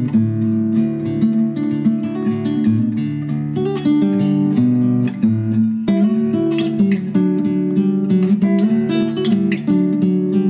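Background music played on acoustic guitar, plucked notes and strummed chords.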